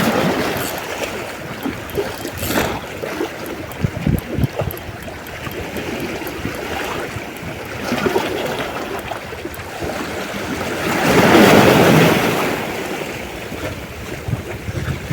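Sea water washing and lapping, with wind on the microphone. A louder surge of water rises and falls about eleven seconds in.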